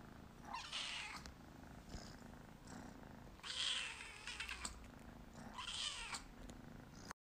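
A seal-point kitten meowing three times, a couple of seconds apart, in high, thin calls.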